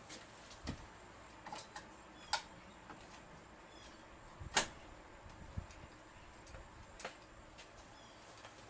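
Scattered clicks and knocks as a two-pole circuit breaker is handled and pushed into place in a service panel, with the sharpest click about four and a half seconds in.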